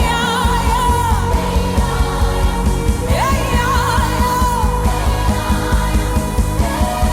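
Background music: a voice sings long held notes that slide up and waver, one phrase about every three seconds, over a steady beat.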